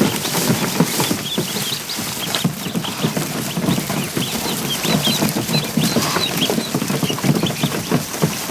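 A crowd of ducklings peeping constantly in short, high chirps, over a steady, dense pattering of small feet and splashing.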